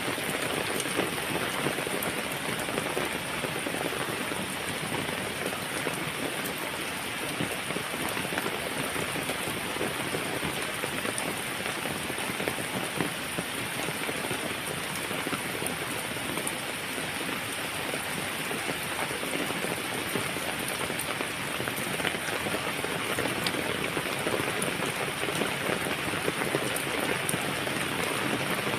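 Heavy rain falling steadily, a dense patter of raindrops hitting a surface.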